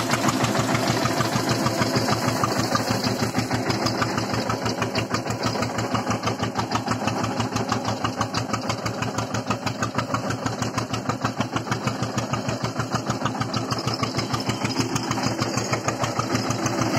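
Eicher 242 tractor's two-cylinder air-cooled diesel engine running steadily under load with a rapid, even beat as it pulls an 11-tine zero-till seed drill through field stubble.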